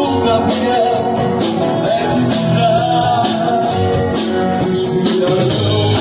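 A song playing: singing over guitar and percussion with a steady beat.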